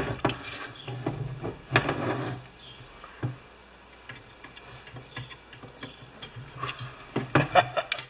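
Scattered light metal clicks and taps from handling an electric PTO clutch on a steel workbench while a feeler gauge blade is worked into its armature air gap, with a short cluster of clicks near the end.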